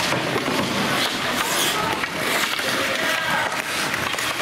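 Spectators at a game chattering, many indistinct voices overlapping at a steady level.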